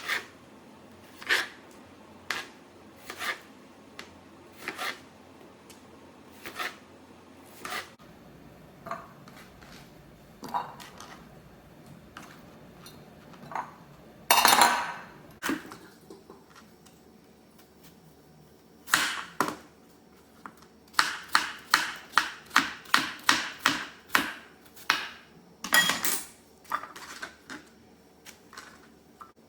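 Kitchen work sounds: sharp knocks and clinks of utensils on dishes, spaced about a second apart at first, then a longer rustling scrape midway, then a quick run of about three strikes a second.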